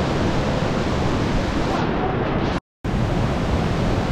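Steady rush of white water as the creek pours over a waterfall and rocks in the slot canyon. The sound cuts out completely for a moment about two and a half seconds in, then comes back the same.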